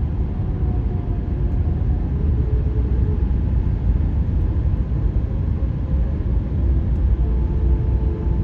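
Tyre noise inside a car driving on newly laid asphalt: a steady low rumble with faint moaning tones that waver slightly in pitch. This is the 'ghost noise' the uploader puts down to asphalt that has not yet settled in the cold.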